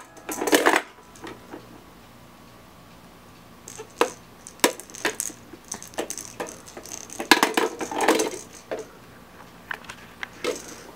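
Plastic toy gumball machine clicking and clattering as its lever is worked and balls rattle down through it, in several bursts, the busiest about halfway through.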